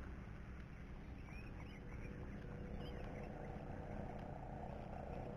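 Low wind rumble on the microphone, with a few faint high chirps in the first half and a steadier hum that comes up about three seconds in.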